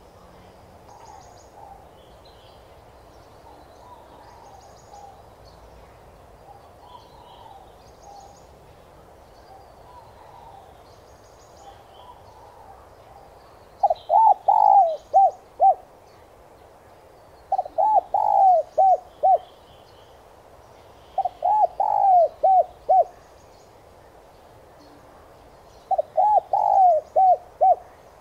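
Spotted dove cooing: four loud phrases of five or six quick coos each, one about every four seconds in the second half, after fainter cooing in the first half. Faint high chirps sound throughout.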